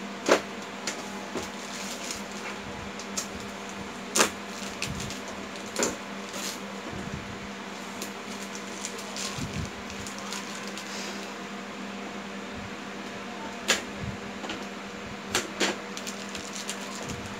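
A handful of sharp clicks and taps from the plastic-wrapped Epson ink-tank printer and its packing being handled, the loudest shortly after the start and a few near the end, over a steady mechanical hum.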